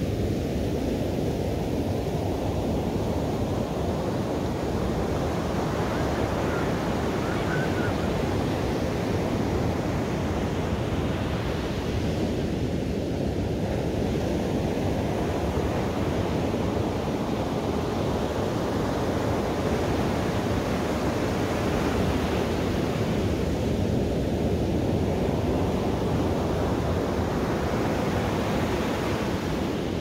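Ocean surf: waves breaking and washing ashore in a continuous rush that swells and ebbs about every ten seconds.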